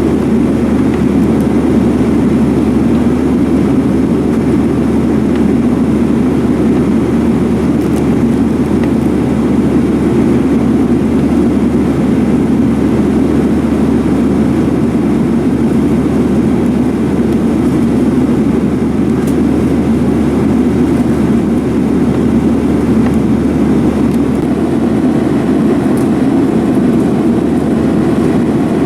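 Steady roar of a Boeing 737-900ER's CFM56-7B jet engines and airflow, heard inside the passenger cabin.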